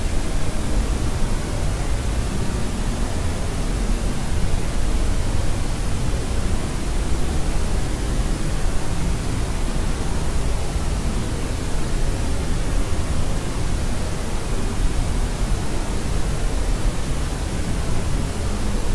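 Steady white noise of the deeper, pink-noise kind: an even, unbroken hiss with most of its weight in the low end.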